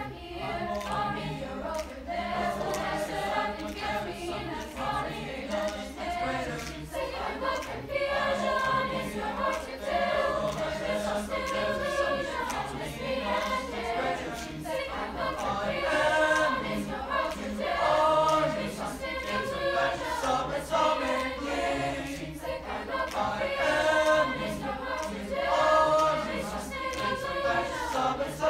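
Mixed teenage chamber choir singing in harmony, several voice parts moving together in phrases that swell and fall.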